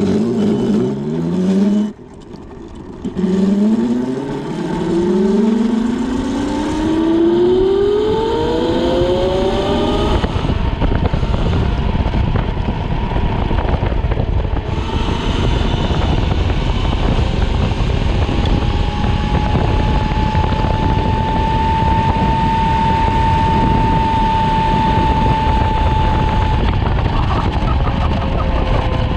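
A 6000 W 72 V electric motor on a mini bike whining and rising in pitch under full-throttle acceleration. A short pull breaks off about two seconds in, then a long climb in pitch follows. After that it holds a steady whine at around 50 mph under heavy wind noise.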